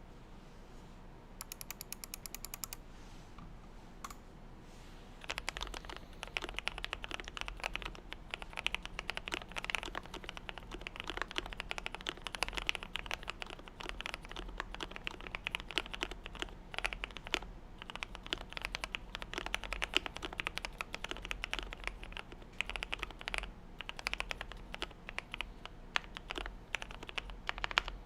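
Typing on a GMMK Pro keyboard with lubed and filmed Gateron Yellow KS-3 linear switches, a polycarbonate plate, PE foam mod, gasket mount and PBT keycaps. A short run of quick even clicks comes first, then about five seconds in steady fast typing starts and runs on with a few short pauses.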